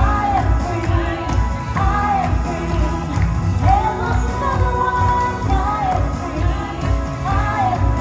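Praise band music with a steady pulsing beat and a melody line that bends in pitch.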